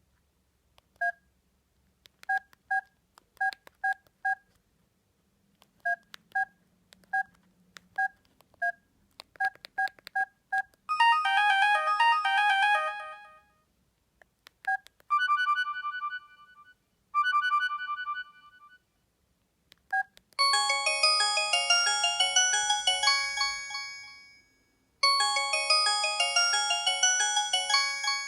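LG GM205 mobile phone: a string of short key beeps as its menu is worked, then previews of its built-in polyphonic ringtones, several electronic melodies of a few seconds each. Most fade out, and a single key beep comes before some of them.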